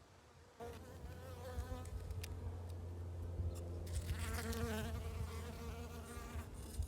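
Bees buzzing, the buzz wavering up and down in pitch as they fly; it starts about half a second in.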